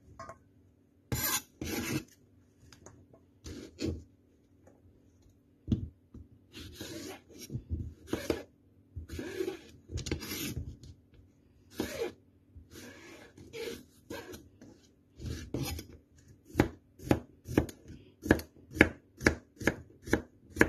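Knife cutting a fresh cucumber on a plastic cutting board: scattered slicing cuts with some scraping at first, then a quick, even run of chops as the pieces are diced into cubes in the last five seconds.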